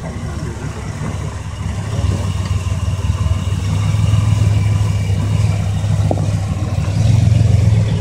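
Rock buggy engine working under load as the buggy crawls over a boulder, a low steady rumble that revs up about two seconds in and again near the end.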